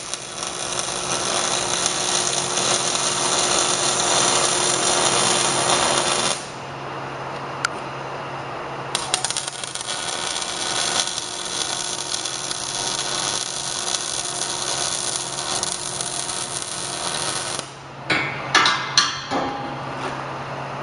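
MIG welder arc crackling steadily as a bead is laid on steel tubing, in two runs: the first stops about six seconds in, the second starts a few seconds later and stops near the end. A steady low hum runs underneath, and a few sharp clicks follow the second run.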